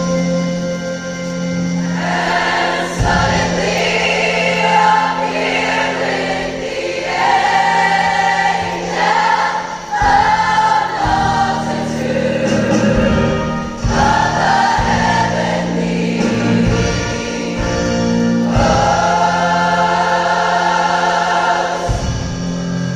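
Choir singing with instrumental accompaniment. Sustained low accompaniment opens the passage, and the choir's voices come in about two seconds in, singing in phrases.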